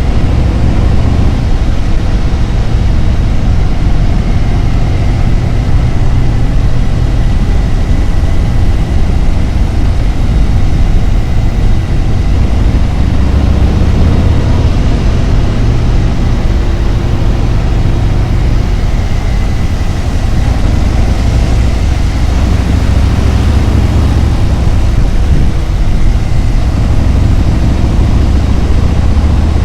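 Harley-Davidson Road Glide's V-twin engine running steadily while the motorcycle rides along the road, under a continuous rush of wind and road noise.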